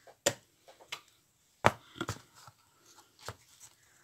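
Handling noise of a cardboard craft piece and tools on a cutting mat: about five scattered knocks and clicks, the loudest a little under two seconds in.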